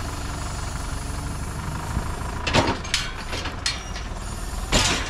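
Tractor engine running steadily, with two loud thumps about two and a half and about five seconds in, and a few lighter knocks.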